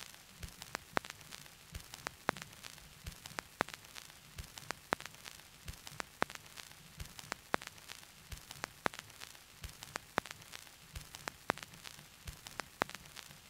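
Faint crackling static: sharp, irregular clicks a few times a second over a steady low hum and hiss.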